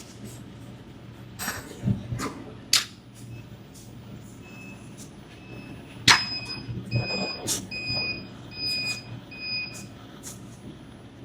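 A row of about eight short, high electronic beeps spaced a little over half a second apart, the first ones faint, over a steady low machine hum. There are a few sharp clicks before the beeps and one loud click just as they get louder.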